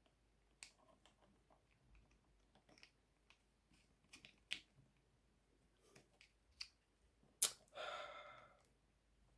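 Light clicks and taps of plastic and metal parts being handled while a light stand is assembled, with a sharper click about seven seconds in followed by a short fading rasp.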